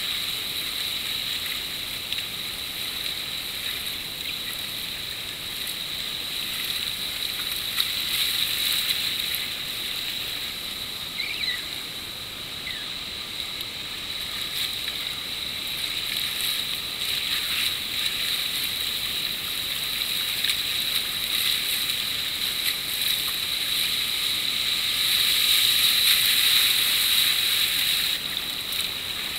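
Rushing whitewater of a river rapid heard from a kayak, with water splashing around the boat. The sound is thin and hissy and gets louder near the end.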